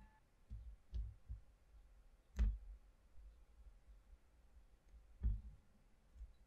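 Faint handling of small wooden craft pieces on a tabletop: a few soft low thumps, then two sharper wooden knocks with a click, the louder about two and a half seconds in and another about five seconds in.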